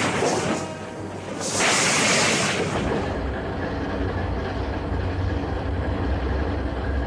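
A loud rushing, hissing burst of noise, then from about three seconds in the steady low rumble of a ferry's engine running.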